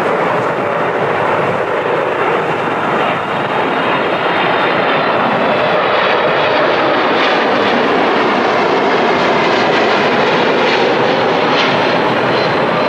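Jet engines of a Boeing 767-300ER airliner on its landing approach, close by. Loud, steady engine noise with a faint whine mixed in.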